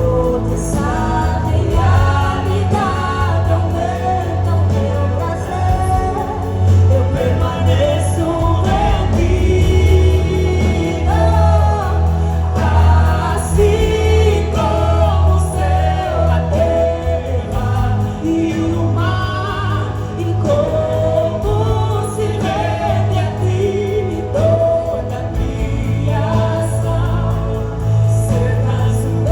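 Live gospel music: a choir singing over a band with a steady bass.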